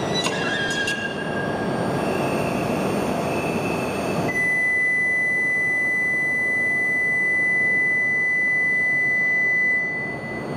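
Steady hum of an E5 series Shinkansen standing at the platform. About four seconds in, a steady electronic tone, the platform's departure signal, starts and holds for about six seconds.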